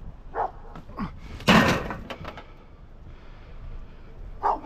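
Scrap items being handled and tossed: one loud crash about a second and a half in, with a few lighter knocks before and after it.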